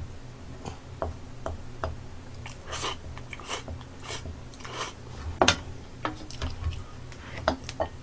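Close-miked eating: chopsticks clicking against a bowl and chewing, as short scattered clicks with a few louder mouth sounds.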